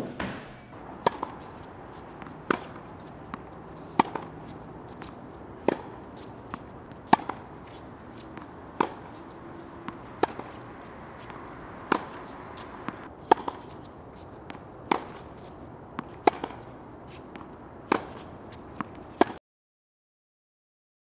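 Tennis ball struck with rackets in a rally: sharp pops about every one and a half seconds, with softer ball bounces between. The sound cuts off abruptly near the end.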